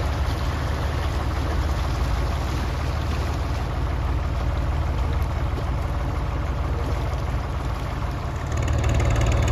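Narrowboat engine running steadily at low revs, a constant low hum that gets a little louder near the end.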